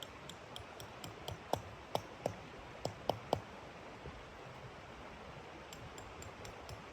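Wood fire crackling: irregular sharp pops and clicks over a steady hiss, with a cluster of louder pops about one and a half to three and a half seconds in.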